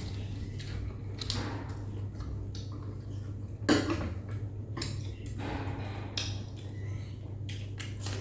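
Eating utensils clinking and scraping against a bowl of noodle soup, with a sharper clink a little past halfway. A steady low hum runs underneath.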